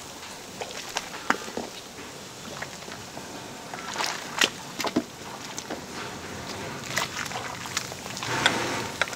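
Splashing and dripping as whole brined ducks are hauled out of a large cauldron of hot brine, with scattered clicks and knocks from the ladle and the birds against the pot; the splashes are loudest about four seconds in and again near the end.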